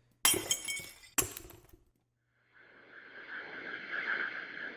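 Cinematic sound effects from a sound-effects library played back: two sharp glassy crashes about a second apart, each with a bright ringing tail, then, after a short gap, a swelling rush of noise with a held tone in it that grows louder toward the end.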